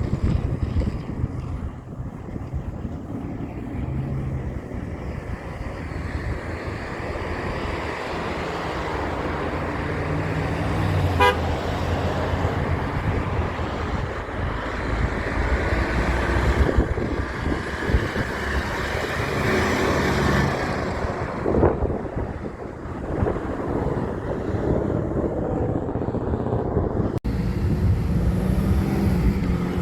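Heavy trucks passing with a steady engine and road rumble that grows louder through the middle, and a short horn toot about eleven seconds in.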